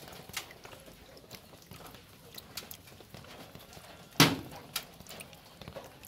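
Live tengra catfish fry wriggling in cupped wet hands, with water dripping back into a steel basin: irregular small wet clicks and drips, and one sharper slap about four seconds in.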